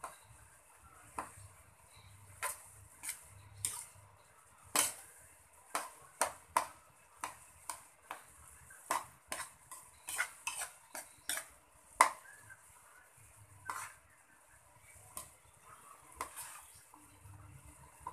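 Metal spatula scraping and clanking against a wok as it stirs a thick mix of shredded jackfruit and anchovies, in irregular strokes about one or two a second, the loudest clank about twelve seconds in. A faint high hiss runs underneath.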